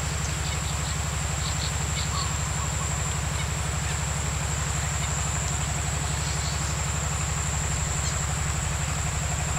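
Steady low throbbing drone, like a distant engine, under a continuous high-pitched insect buzz.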